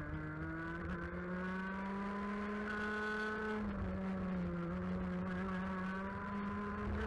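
125cc two-stroke TaG kart engine heard onboard at racing speed. Its pitch climbs over the first second, holds high on the straight, drops briefly about four seconds in as the throttle comes off for a bend, then climbs again. A low wind rumble on the microphone runs underneath.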